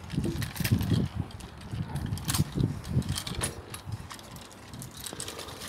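Handling noise from a phone carried against clothing: fabric rubbing and brushing over the microphone, with irregular soft thumps and scattered sharp clicks.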